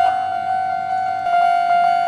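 Japanese railway level-crossing electronic warning bell ringing steadily in a rapid repeating ding, about five a second, its tone shifting slightly a little after a second in.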